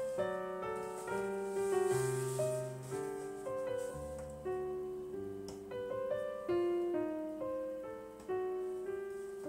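Background music: a gentle piano piece, its notes each struck and left to fade.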